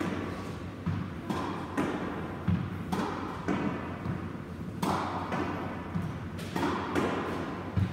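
Squash ball struck by a racket and rebounding off the court walls and wooden floor: a string of sharp, echoing smacks and thuds, about one every half second.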